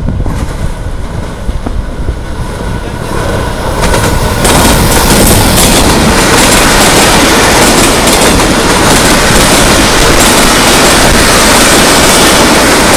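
Passenger express train hauled by an American-built diesel locomotive passing close by at speed. The wheel and rail noise jumps up sharply about four seconds in and then holds steady and loud as the coaches rush past.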